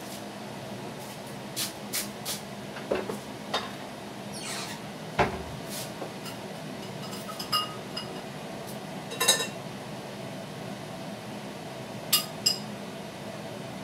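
Dishes and cutlery clinking and knocking on a kitchen counter: scattered short clinks, some ringing briefly, with the loudest clatter a little past nine seconds. A steady low hum runs underneath.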